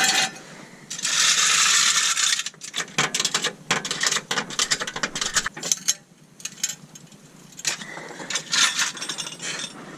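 A hiss of spray lasting about a second and a half, starting about a second in, then runs of quick metallic clicking like a ratchet wrench at work on the engine.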